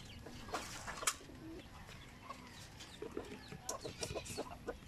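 A pigeon pecking at mixed grain in a wire cage: quick faint taps, a rapid run of them in the second half, with chickens clucking faintly in the background.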